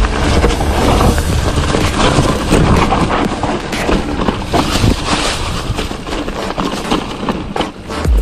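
Mountain bike riding fast over rough off-road ground: wind buffeting the camera microphone with a steady low rumble, and many short rattles and knocks from the bike on the bumpy trail.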